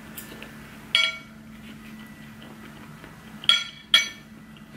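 Metal fork and knife clinking against a ceramic plate: three sharp strikes that ring briefly, one about a second in and two close together near the end.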